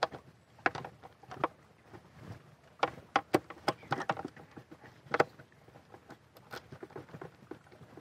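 Irregular sharp clicks and knocks of hands and a tool working parts loose on a small two-stroke Mercury outboard motor during disassembly.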